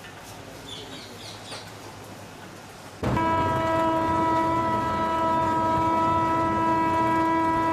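A locomotive sounds its horn in one long, steady single-note blast, starting suddenly about three seconds in after a quiet stretch. It is the signal of a train approaching the station.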